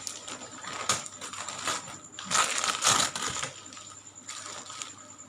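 Gift packaging being torn and handled, a run of crackles and clicks that is loudest in the middle.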